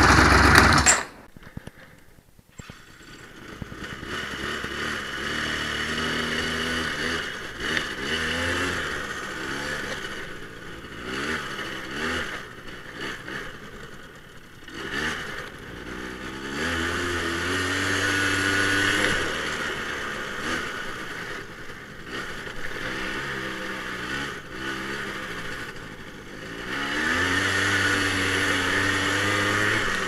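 Apache quad bike's engine running as it is ridden, its pitch rising and falling again and again as the throttle is opened and eased, pulling hardest about halfway through and near the end.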